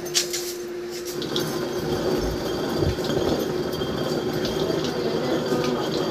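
Hand-turned stone quern grinding black gram: a continuous, uneven gritty rumble of stone rubbing on stone, starting about a second in.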